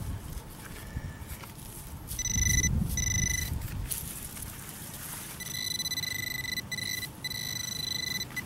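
Handheld metal-detecting pinpointer sounding a steady high electronic tone as it nears buried metal in the dug hole: two short tones a couple of seconds in, then a run of longer tones with short breaks near the end. Wind rumbles on the microphone about two seconds in.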